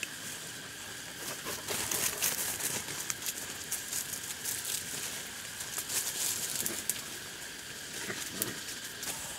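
Leafy ground plants rustling and crackling as they are brushed through and trampled, a busy run of small crisp crackles that grows thicker about a second and a half in.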